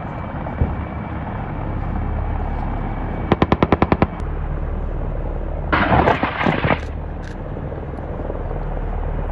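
Military helicopters hovering, their rotors and engines making a steady low drone, with a rapid burst of machine-gun fire of about nine rounds a little over three seconds in. Near the middle a loud rushing blast lasts about a second.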